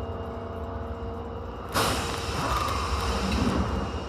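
Running noise inside an Osaka Metro 22 series subway car on the move, with steady whining tones over the rumble, in a car whose sound is high-pitched on this stretch. About two seconds in the noise jumps suddenly louder and hissier and stays up.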